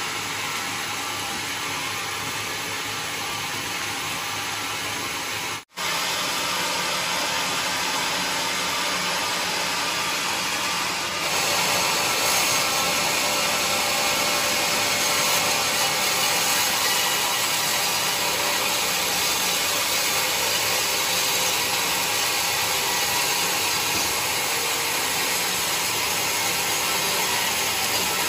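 Sawmill saw running and cutting through a mahogany log: a steady hiss and whine of blade in wood. It cuts out for an instant about six seconds in, and grows louder and brighter from about eleven seconds in as the cut bites.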